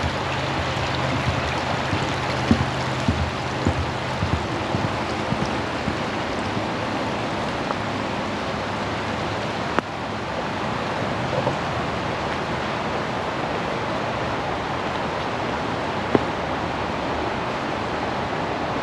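Pocono Creek running steadily, an even, unbroken rush of flowing water.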